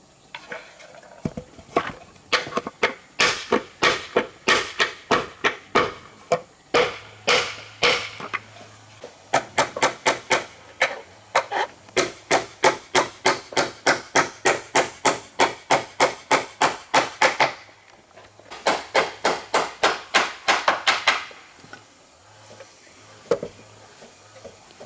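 Hammer driving nails into wooden planks: runs of sharp, evenly spaced blows, up to about three a second, with short pauses between runs. The blows stop a few seconds before the end.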